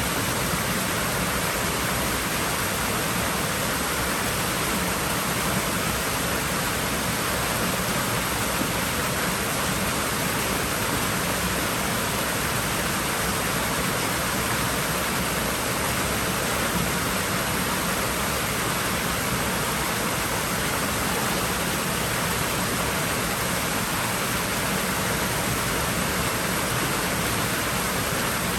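Water running and splashing steadily in a swimming pool, an even rushing wash with no breaks.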